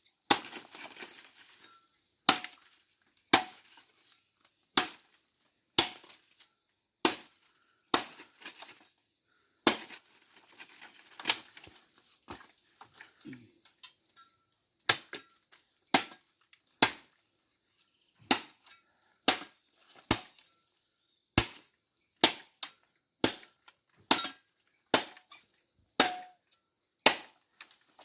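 Firewood being chopped to length: a long run of sharp knocks, about one a second.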